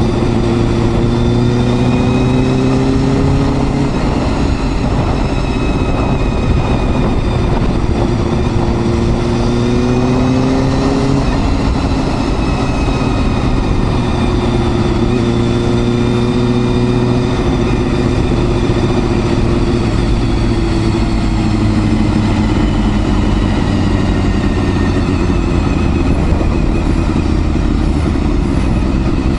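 Honda Hornet 250's inline-four engine running while the motorcycle is ridden. Its pitch climbs slowly and drops back a few times, over a steady rush of wind noise.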